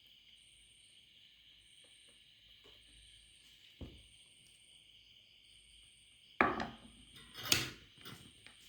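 A single light knock, then two louder clattering knocks about a second apart with a few smaller taps after, over a steady faint hiss: objects being handled and set down on a hard work surface.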